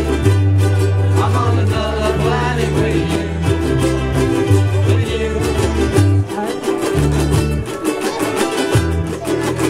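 A ukulele band playing live: several ukuleles strummed together in a lively rhythm over a bass line of low notes that change every second or so.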